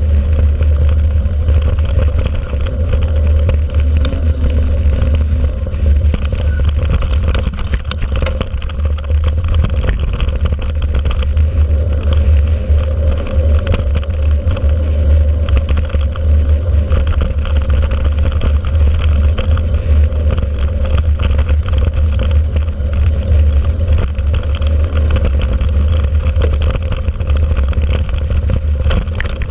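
A mountain bike ridden on dirt tracks, heard from a camera mounted on the bike. Heavy wind rumble on the microphone is mixed with tyre noise on the ground, a steady hum and scattered light rattles.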